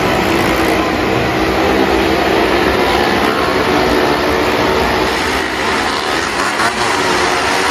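Several cars and motorcycles riding around the vertical wall of a well-of-death pit at once, their engines merging into one loud, steady drone.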